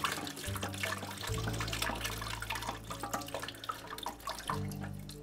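Water left in a toilet tank pouring out through the loosened fill-valve opening into a plastic bucket, splashing and trickling. The stream tapers off and grows quieter toward the end as the tank drains.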